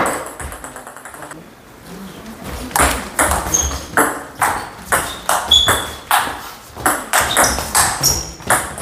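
Table tennis rally: a plastic ball struck back and forth with rubber-faced paddles and bouncing on the table, a quick, even run of sharp hits about two to three a second. It starts about three seconds in, after a short lull.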